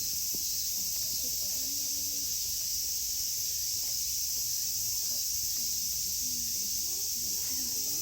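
Steady high-pitched drone of a summer insect chorus, with faint voices of people in the background.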